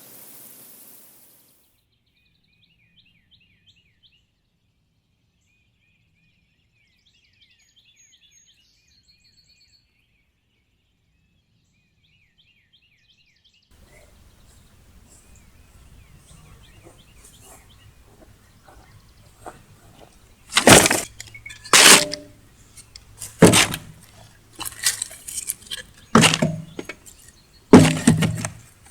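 Faint bird chirps, then from about halfway a series of loud, sharp cracks roughly once every second or two.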